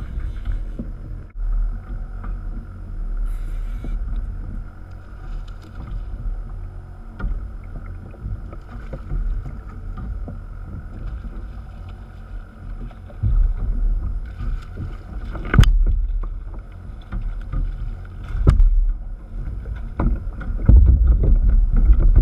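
Water sloshing against a fishing kayak's hull with wind buffeting the microphone, a steady rumbling wash that swells louder near the end. Two sharp knocks stand out about two-thirds of the way through.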